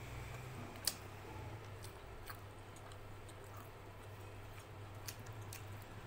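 Fingers mixing rice and chicken curry on a stainless steel plate: soft squishing with scattered light clicks against the steel, the sharpest about a second in, over a low steady hum.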